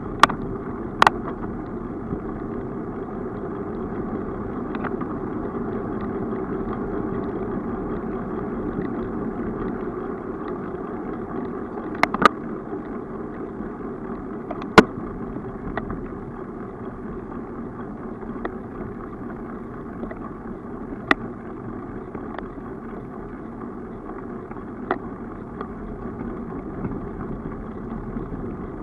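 Steady, muffled rolling noise of a bicycle ride picked up by a bike-mounted camera: tyre and wind noise on the microphone. A handful of sharp knocks come through, the loudest about halfway.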